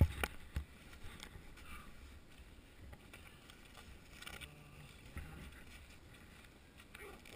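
Snowboard base sliding over packed snow: a faint, steady scraping hiss, with a few sharp knocks and a low rumble in the first second.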